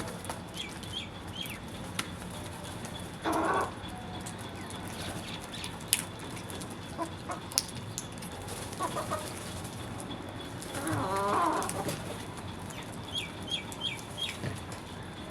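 Birds calling: groups of short high chirps near the start and near the end, a loud harsh call about three seconds in, and a longer stepped call about eleven seconds in, with a few sharp clicks between.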